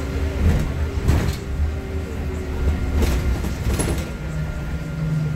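Nova Bus LFS city bus heard from the front seat: a steady low engine and road rumble while the bus moves slowly, with a few short sharp knocks or hisses from the bus body about half a second, one second, three seconds and four seconds in.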